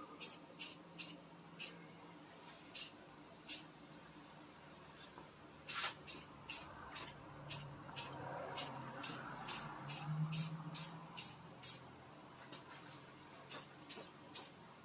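Aerosol spray-paint can hissing in many short, quick bursts, laying on a light dusting coat.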